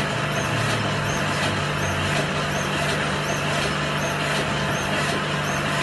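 Heidelberg GTO 52 single-colour offset printing press running: a steady mechanical hum and clatter with a light tick repeating about twice a second as the press cycles.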